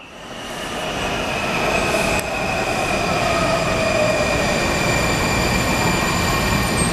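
Washington Metro subway train at the platform, its steady rumble carrying several thin high squealing tones from the wheels and brakes. It fades in over the first couple of seconds.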